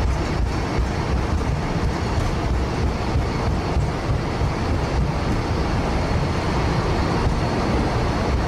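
Boeing 767-200 flight deck during the takeoff roll: a steady low rumble of the engines at takeoff thrust and the wheels on the runway as the jet accelerates from 80 knots toward V1.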